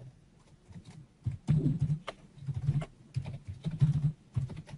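Typing on a computer keyboard: an irregular run of key clicks with dull low thuds as a short entry is typed.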